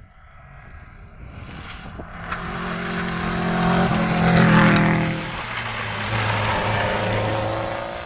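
Rally car at full speed passing by on a stage. The engine note grows louder as it approaches, drops in pitch as the car goes past about halfway through, then fades away.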